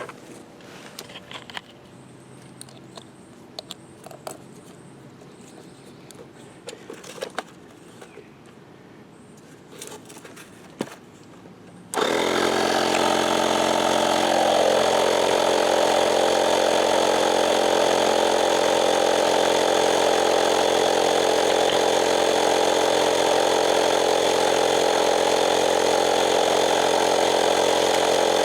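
Faint clicks and knocks of handling, then about twelve seconds in a portable air compressor switches on abruptly and runs steadily, inflating the freshly plugged tire. Its note sinks slightly a couple of seconds after starting.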